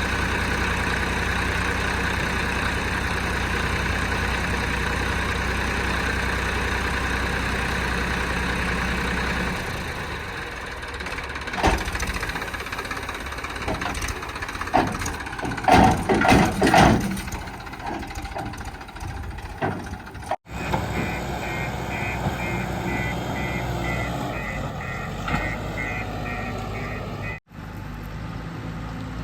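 Heavy diesel machinery running: a steady engine note for about ten seconds, then a quieter stretch broken by several loud knocks and clanks. Near the end a fast-repeating high beep sounds over the engine, and the sound cuts out sharply twice.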